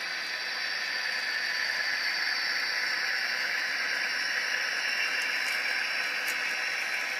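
HO-scale model freight train's cars rolling past on the track: a steady rushing, hissing noise of wheels on rail that grows a little louder about two seconds in.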